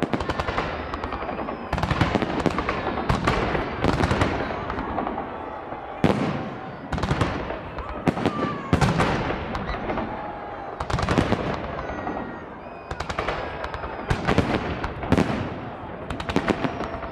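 Aerial fireworks bursting in rapid volleys: booms followed by crackling, repeated every second or so without a break.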